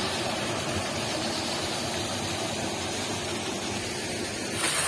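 Water rushing steadily through the sluice gates of a small concrete check dam, spilling past wooden shutter planks and foaming into the canal below; the rush gets a little louder near the end.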